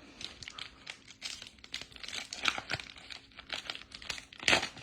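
Foil wrapper of a trading card pack crinkling and tearing as the pack is opened, with cards being handled; an irregular crackle with a louder rip near the end.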